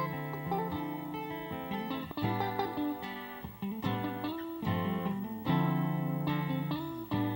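Instrumental break in a gospel song: the accompaniment, led by guitar, plays on with no singing.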